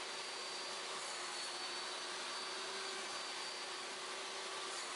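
Table saw running steadily with no cut being made: an even whirring with a faint high whine throughout.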